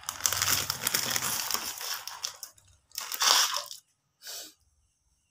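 Crinkling rustle of a plastic packet being handled: a long stretch of rustling, then a louder burst and a short one, then it stops.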